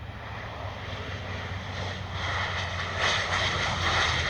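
Passenger airliner's jet engines rushing and growing steadily louder as the aircraft approaches, rising more sharply about three seconds in.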